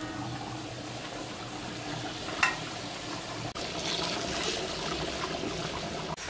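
Stew boiling and bubbling in a large cauldron over a wood fire, with one sharp metal clank about two and a half seconds in as the pot's aluminium lid is handled.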